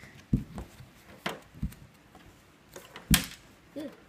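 A handful of separate knocks and taps as hands handle a tabletop hockey game and its figures. The loudest knock comes about three seconds in.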